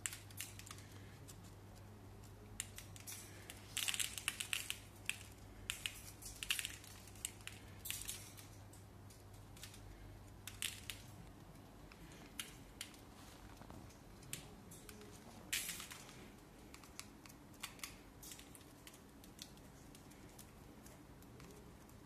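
Cockatiel eating seed from an acrylic feeder: irregular bursts of crisp crunching and clicking as seeds are cracked and husked and the beak knocks about the seed tray. The clicks come in clusters, thickest a few seconds in, under a faint steady hum that stops about halfway through.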